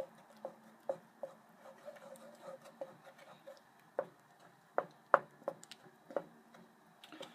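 Wooden spoon stirring thick gravy in a saucepan, knocking and tapping against the pan in a series of irregular light knocks, with the loudest ones between about four and six seconds in.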